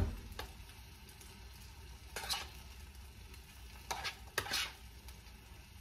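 A spoon scooping moist sautéed peppers and onions out of a bowl. It opens with a knock, then a few short wet scrapes come about two seconds in and again around four to four and a half seconds.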